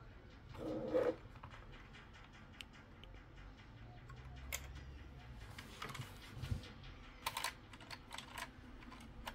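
Scattered light clicks and taps of small metal and plastic parts being handled: the chassis of a Dell OptiPlex Micro PC and its antenna bracket as the antenna cable is fed through. A brief low hum from a person comes about a second in.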